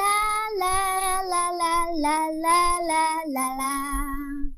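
A little girl's voice singing "la la la" in a slow tune that steps downward note by note. It ends on a longer, lower held note that stops just before the end.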